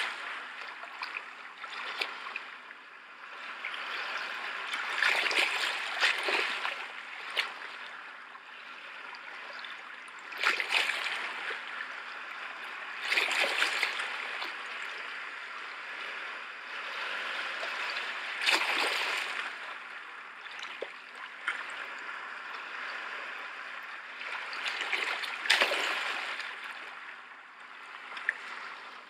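Rushing, splashing water, a steady wash that swells and fades every few seconds.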